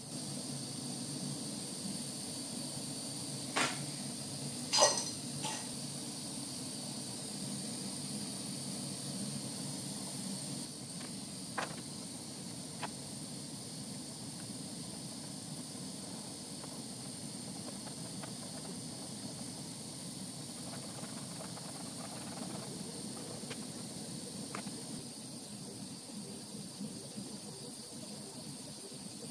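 Glassworking torch flame hissing steadily while glass is heated and shaped, with a few sharp clicks, the loudest about five seconds in.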